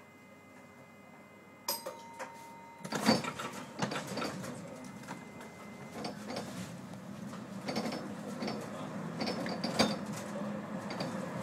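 Vienna Type E1 tram heard from its driver's cab as it pulls away: a click and a short steady tone, then a loud clank as it moves off, followed by rattling and knocking over a rolling noise that grows louder as it picks up speed.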